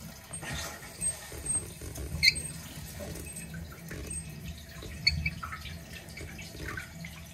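Water running through a toilet's supply line and bidet tee valve as the wall shutoff valve is opened: a steady hiss with a few small clicks and knocks from hands on the valve and hose.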